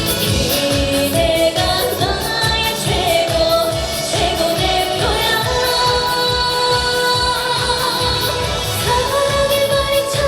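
A woman singing a trot song live over a backing track with a steady beat, sliding into and holding notes with vibrato.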